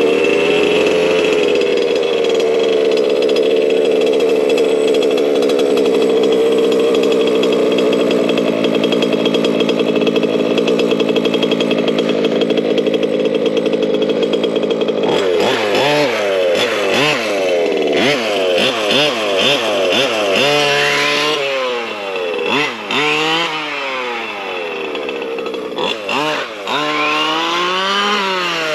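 ESP 30.5cc two-stroke race engine in a Losi 5ive-T 2.0 large-scale RC truck, starting up and running at a steady pitch, then from about halfway revving up and dropping back over and over. It is a brand-new engine being run in with heat cycles and repeated half-throttle pulls.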